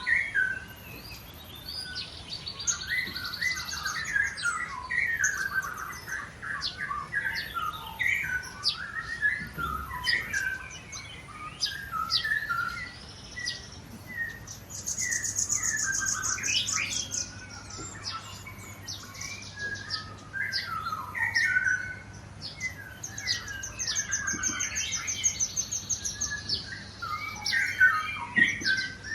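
White-rumped shamas singing: a steady run of varied whistled phrases, overlaid at times by fast high trills.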